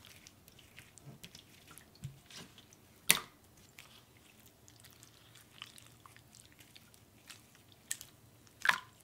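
Jiggly slime squeezed and pulled by hand, giving faint wet squishes and clicks, with a sharp pop about three seconds in and another near the end.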